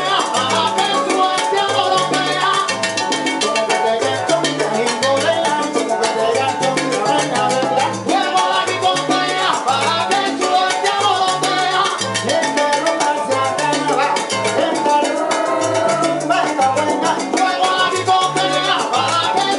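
Live salsa band playing at full volume: a repeating bass line from an electric upright bass over congas and timbales, with the rest of the band filling in above.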